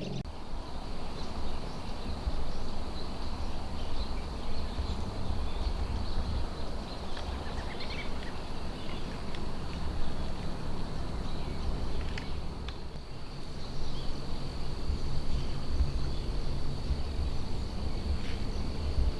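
Evening outdoor ambience: crickets trilling steadily on one high note over a low, uneven rumble, with a few faint bird chirps.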